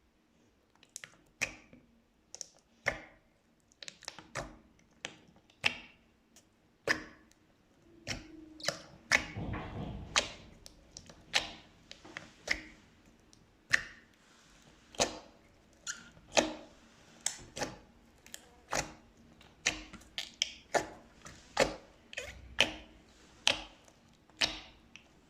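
Slime being squeezed and poked by hand, making sharp, irregular clicking pops about one to two a second, with a denser squishing stretch about nine to eleven seconds in.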